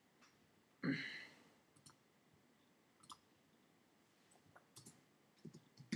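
Faint, scattered light clicks of typing at a computer, spaced a second or more apart, with a short soft noise about a second in.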